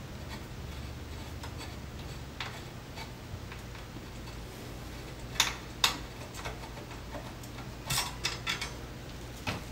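Light metallic clicks and ticks of a T-handle hex wrench turning a rear-rack bolt at a bicycle dropout, the tool knocking on the bolt and rack. Two sharper clicks come about halfway through and a short run of clicks near the end.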